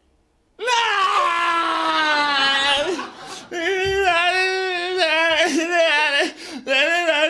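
A single voice making three long, drawn-out wavering cries, the first sliding slowly down in pitch, with short breaks between them.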